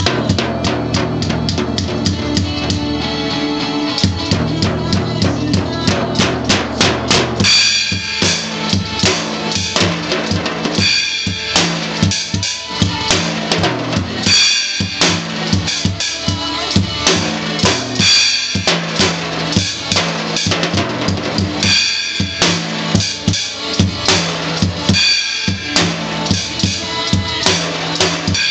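A drum kit being banged along to a recorded rock song, a steady beat with regular bright accents that settles in about seven seconds in.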